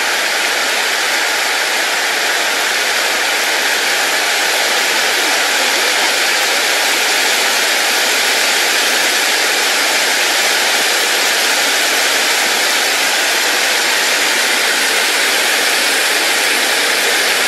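River water rushing steadily: an even, unbroken hiss.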